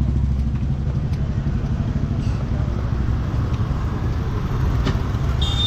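Steady low rumble of motor vehicles and road traffic, with a few faint clicks and a thin high whine that starts near the end.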